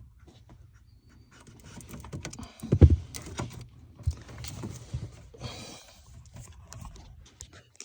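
Plastic interior trim being worked loose and unclipped by hand: irregular clicks, knocks and rustling, with one loud knock about three seconds in.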